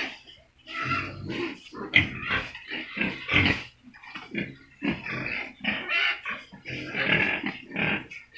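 Several young pigs grunting in a dense run of short, irregular calls.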